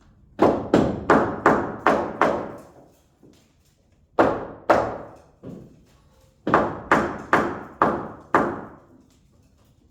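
Repeated hammer blows on wood floor framing, in three runs of strikes about three a second, each hit sharp with a short ring, typical of knocking a tight 2x12 joist into place.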